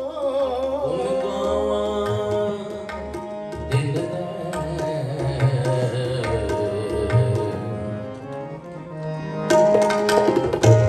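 Harmonium and tabla playing an instrumental passage of Sikh kirtan: the harmonium holds sustained chords while the tabla keeps a rhythm, its low drum sliding in pitch. The tabla strokes grow louder and busier near the end.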